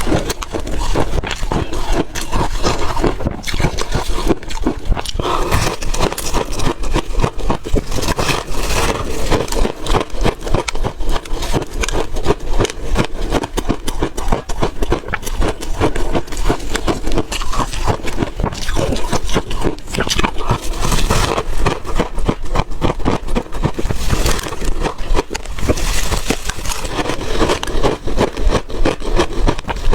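Close-miked crunching and chewing of refrozen ice cake: a dense, continuous run of sharp crackling crunches.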